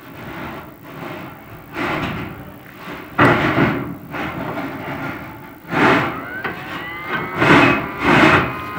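Chimney inspection camera and its rod scraping and knocking against the inside of a prefab fireplace's metal flue pipe as it is fed down, in uneven swells of rasping noise with stronger pushes about 3 s in and again near the end.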